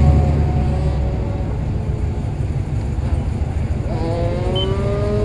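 Car engine idling steadily with a low rumble. About four seconds in, a rising engine note joins it, as of a car accelerating.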